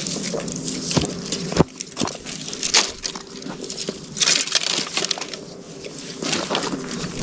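Dry wood crackling and snapping in irregular sharp cracks, with a faint steady hum underneath.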